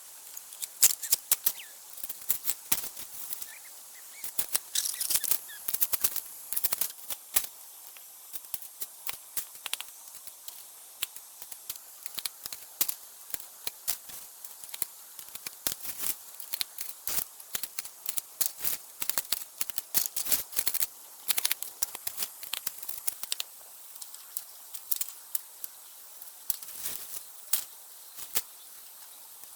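Bamboo being split and shaved into strips with a blade: irregular crisp cracks and sharp clicks, several a second, with short pauses between runs.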